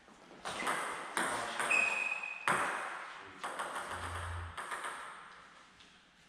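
A table tennis ball bouncing and clicking several times, about a second apart, each click ringing briefly in the hall. A short high tone sounds about two seconds in.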